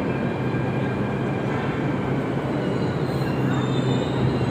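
Delhi Metro electric train coasting slowly into the station and braking to a stop, with a steady rumble of wheels on rail and motor hum. A thin high squeal comes in near the end.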